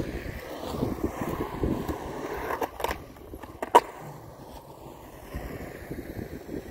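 Skateboard wheels rolling on concrete, with a couple of sharp clacks past the middle and one loud clack of the board about four seconds in, then rolling on more quietly.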